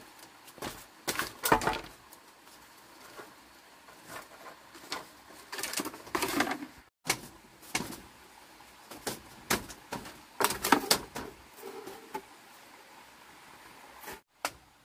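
Woven bamboo-slat panel knocking and clattering against a bamboo coop frame as it is handled and fitted, in several bursts of knocks and rattles, loudest about a second and a half in and again around ten to eleven seconds in.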